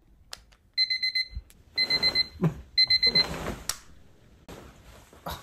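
Sony digital clock radio alarm beeping: three quick bursts of rapid electronic beeps, about one burst a second.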